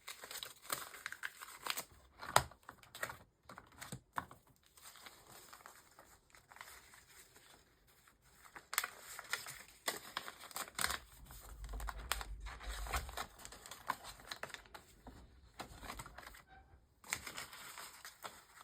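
Paper rustling and crinkling with scattered light clicks and taps, from handling a planner wallet and tucking banknotes and paper inserts into it.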